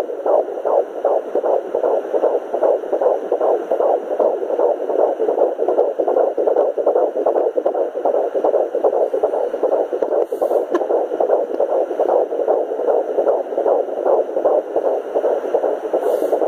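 Sonoline B fetal Doppler playing a baby's heartbeat at about 13 weeks of pregnancy: a fast, regular pulsing, several beats a second, with no break.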